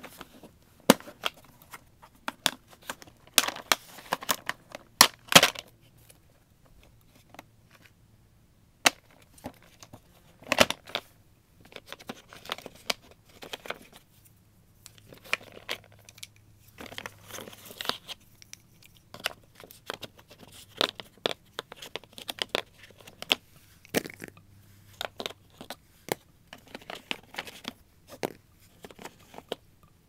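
Hands sorting paper-wrapped pastel sticks out of a plastic case: irregular clicks and knocks of sticks and case, with rustling in between. The loudest clatter comes in a cluster a few seconds in and once more at about ten seconds.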